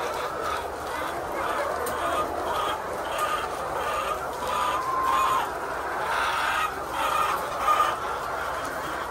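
A flock of layer hens clucking and calling together: a dense chorus of many overlapping short calls, with one longer held call about five seconds in.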